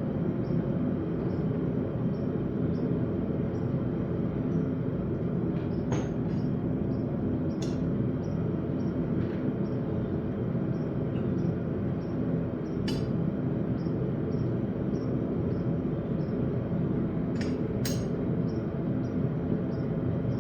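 Steady rushing noise of a forge running, with a few light metallic clinks scattered through it.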